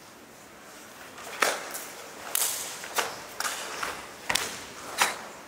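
Sharp cracks of a karate gi snapping with fast strikes and kicks in the kata Suparinpei, about six in four seconds, some with a thud of a bare foot on the mat.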